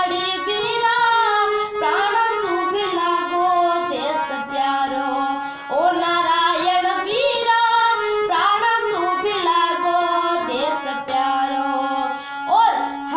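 A girl singing solo in Rajasthani, her voice sliding up into long held notes between phrases.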